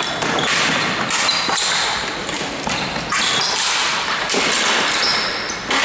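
Ball hockey play in a large echoing hall: sticks and ball knocking, with short high squeaks of shoes on the floor over a steady wash of noise.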